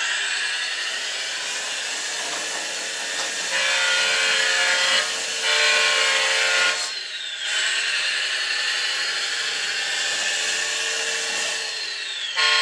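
Servonaut sound module in an RC Volvo A60H dumper playing a raspy diesel-engine sound through its small speaker as the truck drives. A steady horn blares twice, about three and a half and five and a half seconds in, each lasting over a second, and again at the very end.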